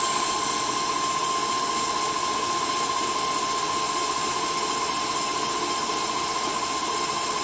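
CNC metal lathe running a turning cycle, its spindle spinning a four-jaw chuck and shaft steadily, with a steady high-pitched whine over the even machine noise.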